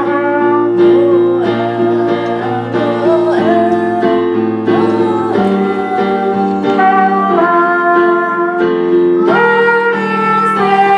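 Music: held chords that change every second or so.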